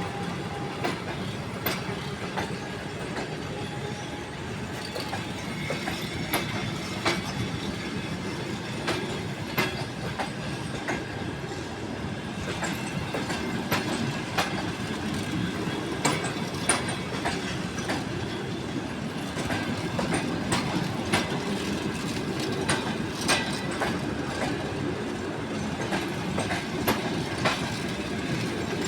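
Passenger train carriages rolling past on the track, with a steady rumble and wheels clicking over the rail joints many times, unevenly spaced.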